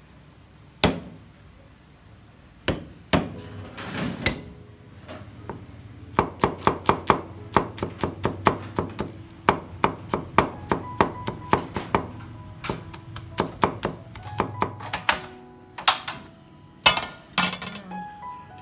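Kitchen knife chopping food on a cutting board: a few single chops, then a fast run of about four to five chops a second, with a few heavier chops near the end.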